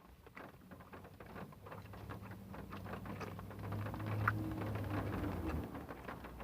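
Close-up chewing of a crispy fried-chicken sandwich, with small crackling clicks throughout. A low steady hum joins in from about halfway and stops shortly before the end.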